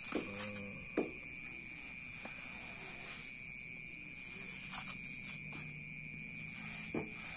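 Night insects chirping in a steady high drone, with a few soft clicks and taps as potting sand and media are worked around the roots of a potted plant.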